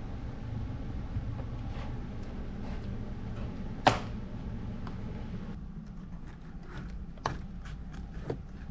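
Plastic A-pillar trim cover being handled, giving a sharp click about four seconds in and a scatter of smaller clicks and taps near the end, over a steady low hum.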